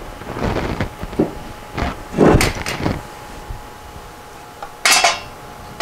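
Metal engine parts being handled in a workshop: a few scraping knocks and clunks, then a sharp, ringing metallic clink about five seconds in.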